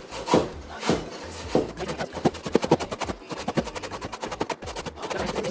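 A carrot being grated on a stainless steel box grater: a few slower strokes at first, then quick repeated grating strokes, several a second, from about two seconds in.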